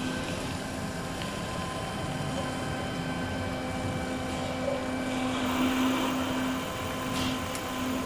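Eberspächer Hydronic L-II 30 kW bus heater running on test, its burner's electric motor turning the fan and fuel pump with a steady hum and hiss that swells around five to six seconds in. It is a start attempt in which the burner does not light.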